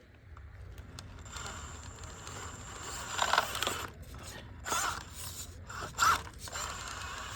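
Prophet Design Kaiju RC rock crawler climbing rock, with a steady thin high motor whine. Three short scraping bursts of the crawler grinding against rock come about three, five and six seconds in.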